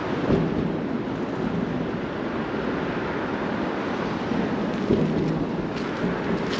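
Steady low rumble of traffic and running vehicle engines, with wind on the microphone and two brief low thumps, one near the start and one about five seconds in.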